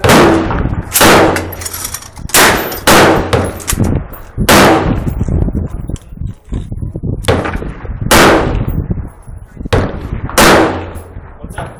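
Gunfire at an outdoor range: about seven loud shots at irregular intervals with a few fainter ones between, each trailing off in a long echo.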